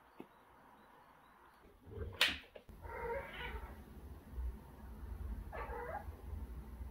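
A white cat meows twice, a short call about three seconds in and another near the end, over a low rumble. A sharp click comes just before the first meow.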